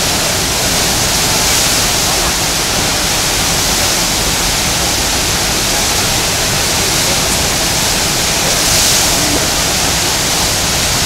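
Churning whitewater of a standing river surf wave, rushing steadily and loudly.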